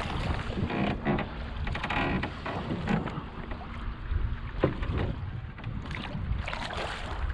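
Wind on the microphone over water sloshing around a small wooden sailboat, with creaks and scattered knocks from the boat and its gear; one sharper knock about halfway through.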